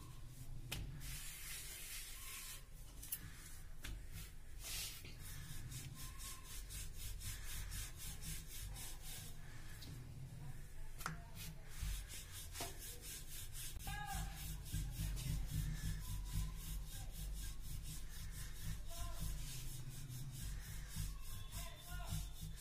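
Wooden rolling pin rolling out dough on a flour-dusted rolling board: steady rubbing and rolling, stroke after stroke, as two stacked, oiled dough rounds are flattened into a thin spring-roll sheet.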